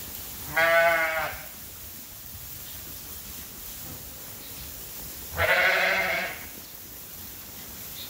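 Sheep bleating twice, each call under a second long, about five seconds apart, over a steady low hiss.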